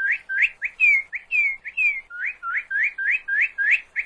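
Northern cardinal singing: a fast series of clear rising whistled notes, about four a second, with a short run of falling slurred notes between about one and two seconds in.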